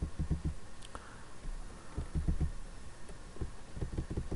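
Faint ticking of a computer mouse scroll wheel in several short bursts as a document is scrolled down.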